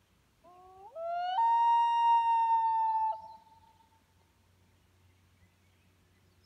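Common loon giving one long wail: the call rises in steps to a high held note, then breaks off and fades about three seconds later.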